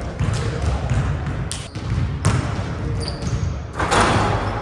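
A basketball bouncing on a hardwood gym floor, with sneakers squeaking on the run-up. About four seconds in, a loud, brief clatter as the ball is dunked through the rim.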